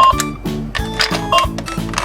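Upbeat background music: a plucked bass line repeating about four notes a second, with short higher tones over it.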